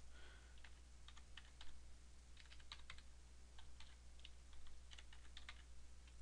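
Faint typing on a computer keyboard: a run of short, irregular key clicks as a file name is typed.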